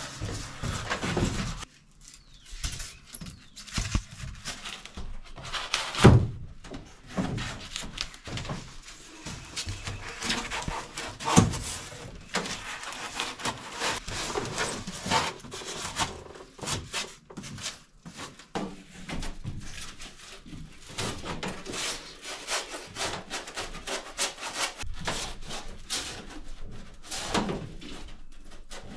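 Rigid expanded foam insulation boards being pushed and fitted against a school bus's metal ceiling ribs: irregular rubbing and scraping of foam with knocks, two of them louder, about six and eleven seconds in.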